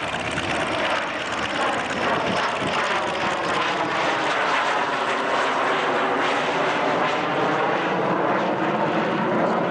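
de Havilland Sea Vixen's twin Rolls-Royce Avon jet engines running loud as it passes low overhead, with a tone that sweeps and phases as the aircraft goes by.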